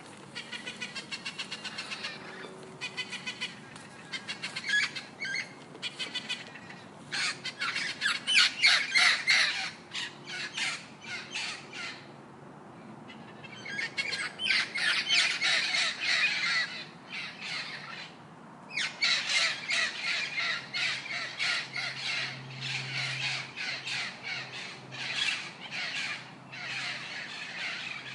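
A parrot screeching and squawking in long bouts of rapid, harsh, repeated calls, with brief pauses between bouts.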